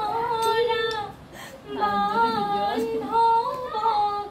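Women singing a slow melody unaccompanied, holding long, level notes, with a short break a little over a second in before the singing resumes.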